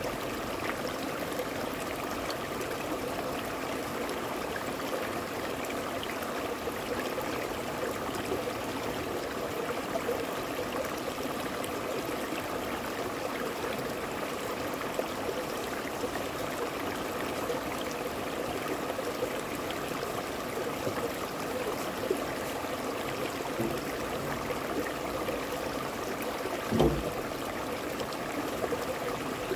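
Shallow stream running steadily over rocks, a continuous rushing, babbling flow. A single low thump sounds near the end.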